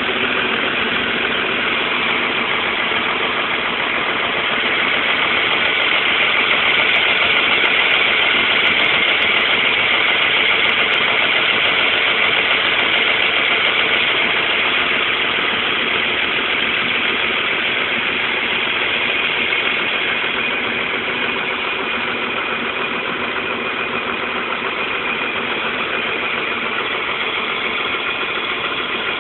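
Mercedes-Benz OM 366A inline six-cylinder turbo-diesel bus engine running steadily, heard close up at the open engine bay. It gets a little louder from about five seconds in until about twenty seconds in, then settles back.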